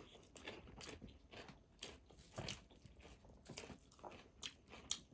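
Close-miked eating of pork feet: irregular small wet clicks and crunches of biting and chewing, a few times a second.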